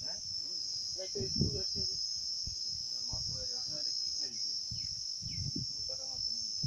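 Insect chorus: a steady, high-pitched shrill drone that holds without a break, with people talking faintly under it.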